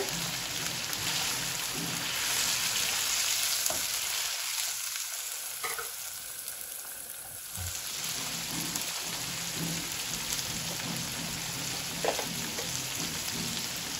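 Beef head meat and chopped tomatoes sizzling in hot oil in a nonstick wok, stirred with a silicone spatula. The sizzle is a steady hiss, with a few faint knocks of the spatula against the pan.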